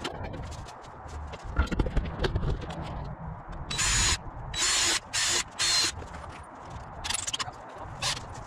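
Cordless drill boring pilot holes into a 1/2-inch MDF panel in several short bursts, starting about four seconds in, followed by shorter bursts from a cordless impact driver near the end. Low knocks of the boards being handled come before the drilling.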